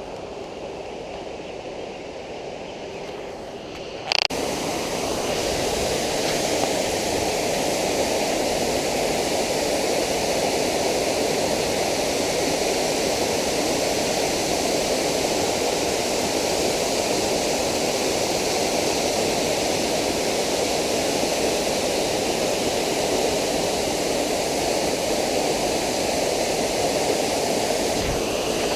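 Waterfall rushing in a steady roar of falling water. About four seconds in, a brief click comes and the rush jumps to much louder, then holds steady.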